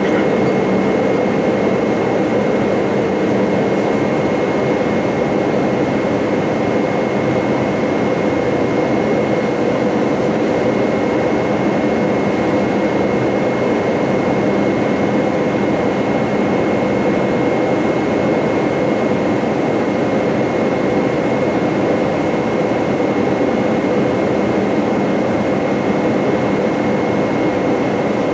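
Steady cabin noise of an Airbus A318 airliner descending on approach, heard from a window seat beside the wing: a dense, even rush of jet engine and airflow noise with a thin, steady high whine on top.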